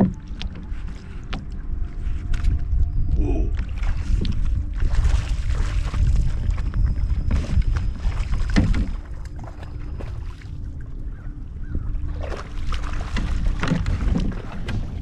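Water splashing and sloshing around a kayak as a hooked speckled trout thrashes at the surface, the splashing strongest between about five and nine seconds in, over a steady low rumble of wind on the camera microphone.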